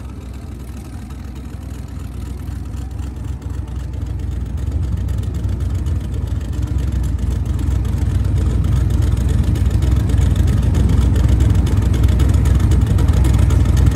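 Twin-turbo Mazda RX-7 drag car's engine running at low revs with a deep rumble, growing steadily louder.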